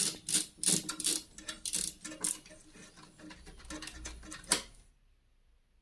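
Screwdriver undoing a screw on a fridge's thermostat housing: a run of irregular small clicks, several a second, thinning out and ending with a sharper click about four and a half seconds in.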